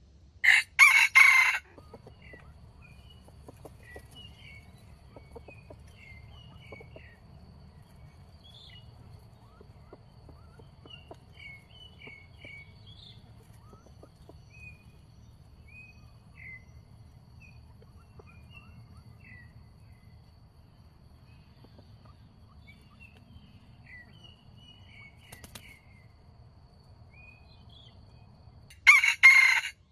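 Junglefowl rooster crowing twice: a short, loud crow just after the start and another near the end. Faint, high bird chirps come and go in between.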